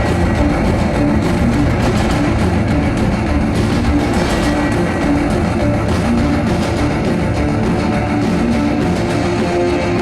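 Loud rock music with electric guitar, with a show group of drummers beating out a fast, steady pattern on their drums over it.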